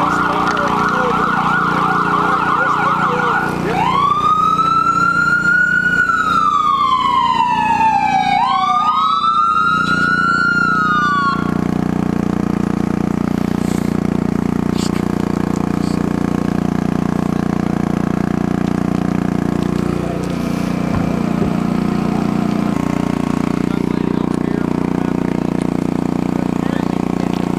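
Emergency vehicle siren: a fast warbling yelp that switches about three and a half seconds in to a slow wail rising and falling twice, then cuts off near twelve seconds. A steady low engine hum runs underneath and continues after the siren stops.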